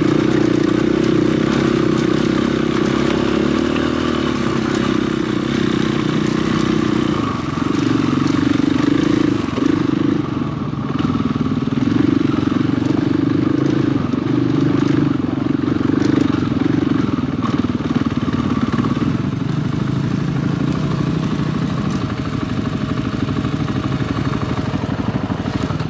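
Dirt bike engine running while riding a trail, its note shifting as the throttle opens and closes, over a steady rush of wind and ground noise.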